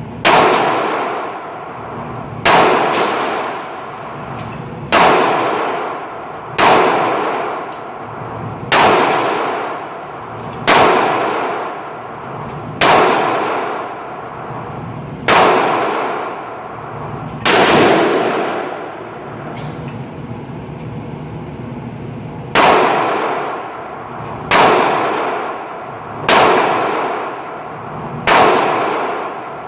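AR-15 rifle (Smith & Wesson M&P15 Sport II, .223/5.56) fired slowly shot after shot: about a dozen sharp shots roughly two seconds apart, each ringing off in a long echo, with a pause of several seconds about two-thirds through.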